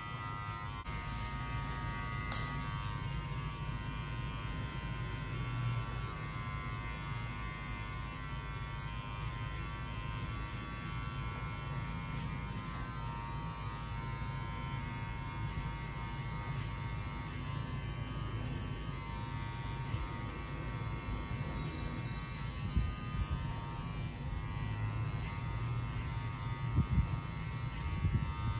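Electric hair clipper running with a steady buzzing hum while cutting hair, with a sharp click a couple of seconds in.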